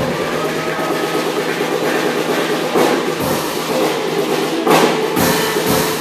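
Music with percussion playing, with two sharp accented hits, about three seconds in and just before five seconds.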